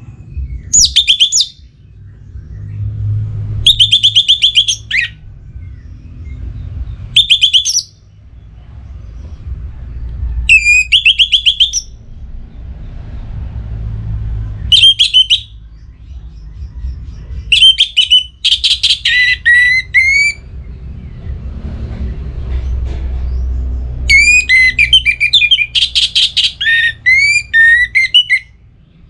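Orange-headed thrush singing: about seven loud phrases of rapid, high, sliding notes separated by short pauses, the longest and fullest run near the end. A low rumble sits under the song.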